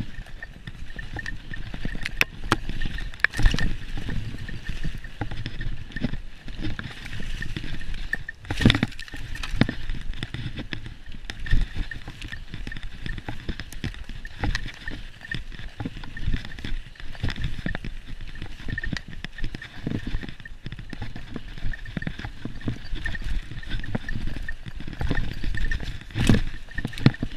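Mountain bike riding fast down a dirt trail covered in dry leaves: steady tyre noise over the ground with frequent knocks and rattles from the bike over bumps, the loudest jolts about three seconds in, near nine seconds and near the end.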